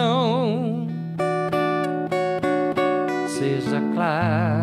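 A man singing a slow ballad to acoustic guitar: a long note with wide vibrato, then a passage of plucked and strummed guitar chords, then another held vibrato note near the end.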